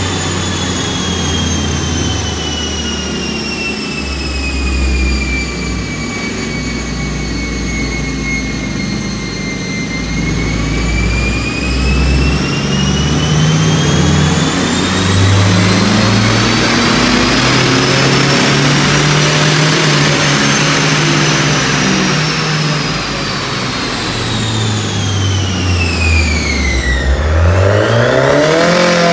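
Bolt-on turbocharged Honda City i-VTEC engine with CVT running on a chassis dyno during tuning. A high whine glides down, climbs to a peak about two-thirds of the way through, falls away, then rises again near the end as the engine revs up.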